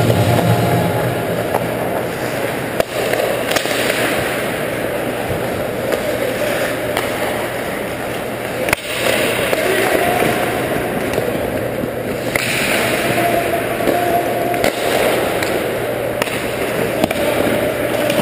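Ice hockey play: skates scraping the ice and sticks and puck clacking, under a steady rink noise, with sharp knocks about three seconds and nine seconds in.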